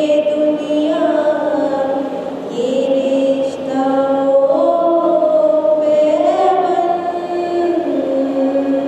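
A woman singing an Urdu tarana solo into a microphone, with no instruments heard. She holds long, drawn-out notes that step up and down in pitch.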